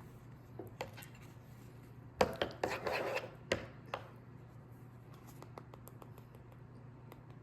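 Kitchen clatter: a short flurry of knocks and clinks from utensils and dishes being handled, starting sharply about two seconds in and lasting under two seconds, with a few light clicks before and after over a low steady hum.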